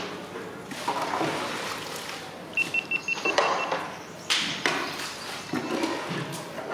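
Clinks and scrapes of a steel ladle and bowl dipping into a large metal cooking pot of curry as the gravy is skimmed off. A quick run of about eight short, high electronic beeps comes about two and a half seconds in.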